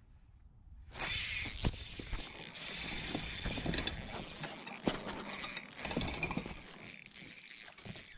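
Spinning reel being cranked close to the microphone, starting suddenly about a second in: a steady mechanical whirring with scattered clicks from the reel.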